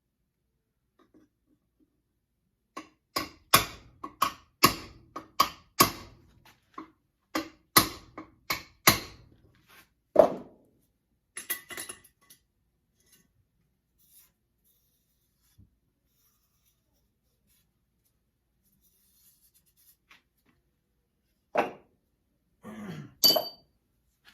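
Hammer tapping a hub seal into a trailer axle hub through a grinding disc used as a makeshift seal driver. A quick run of a dozen or so metal-on-metal taps, then one heavier blow, a pause, and two last knocks near the end, the final one ringing as the seal seats.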